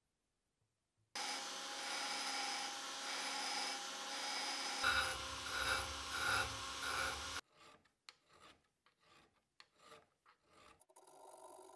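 A handheld electric rotary tool runs with a steady whine while its burr grinds the welded steel edge of a vise's anvil, the grinding coming in pulses about twice a second from about halfway in. It cuts off abruptly, and a hand file then scrapes across the steel in separate strokes.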